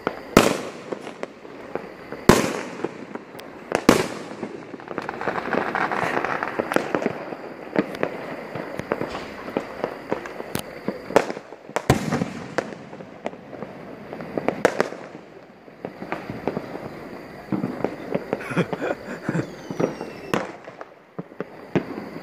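Aerial fireworks going off: sharp bangs of bursting shells at irregular intervals, the loudest within the first four seconds and one about twelve seconds in, with stretches of crackle between them.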